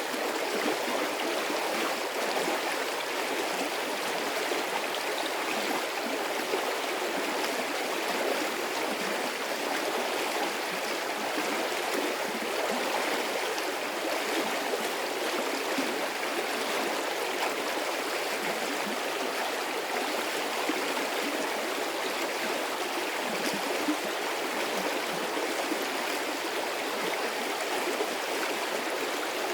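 A medium-sized stream of water flowing steadily, a constant rush with small gurgles and splashes.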